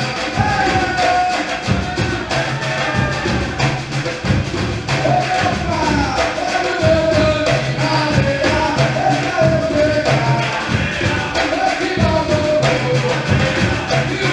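Percussion ensemble playing a steady Afro-Brazilian groove, with low bass drums pulsing under many sharp drum and shaker strikes, and a voice singing a melody over it.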